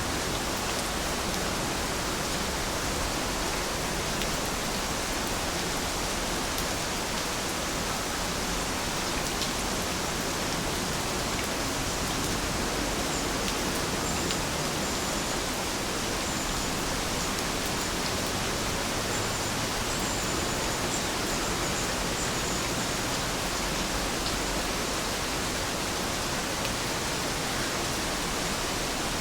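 Steady rain falling: an even, unbroken hiss with no change in level.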